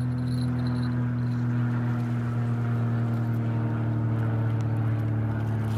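A steady low engine drone, one unbroken hum with overtones, dipping slightly in pitch near the end.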